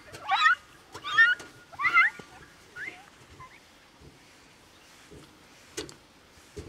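An animal calling: four loud, harsh, rising calls about two-thirds of a second apart, then two fainter ones. A single sharp click comes near the end.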